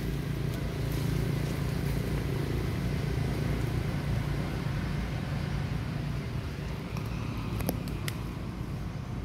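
Steady low motor hum, like an engine running nearby, with a couple of sharp clicks near the end.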